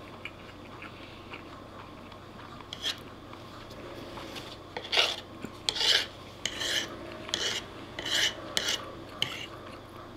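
A metal fork scraping across a wooden plate, gathering up the last of the pasta. A few faint scrapes early, then from about halfway a run of about seven short scrapes, each under half a second.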